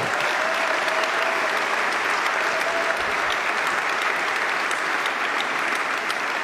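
A large indoor audience applauding steadily, a dense even clapping that holds at the same level throughout.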